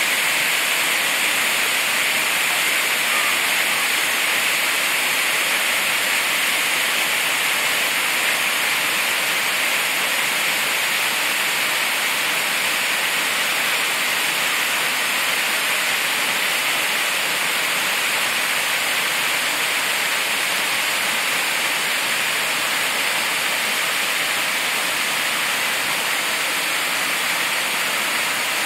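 A waterfall pouring down a rock face and splashing onto rocks at its base, making a steady, even rush of water.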